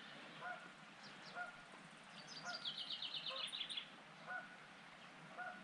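Waterfowl honking, short calls repeated about once a second. In the middle a small bird sings a quick high trill of about a dozen notes.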